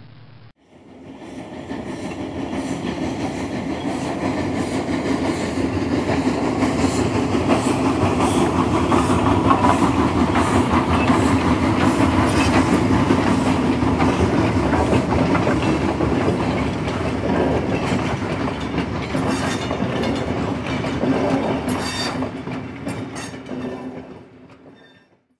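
O-gauge model train, a Hogwarts Express steam locomotive and its cars, running on three-rail track: a steady rumble with rapid clickety-clack from the wheels over the rail joints. It fades in over the first couple of seconds and fades out near the end.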